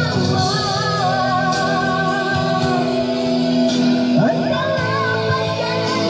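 A song with a singing voice, laid over the video as background music.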